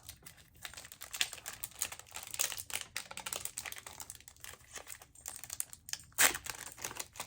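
Foil trading-card booster pack being crinkled and torn open by hand: a run of small crackles and clicks, with a louder crackle about six seconds in.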